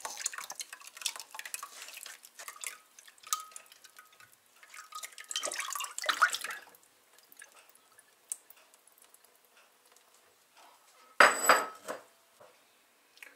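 Water dripping and splashing from rinsed flax seeds draining through a fine metal sieve into a bowl and the sink, in quick irregular drips for the first several seconds, then thinning out. About eleven seconds in, a short loud clatter as the sieve is set down on a bowl.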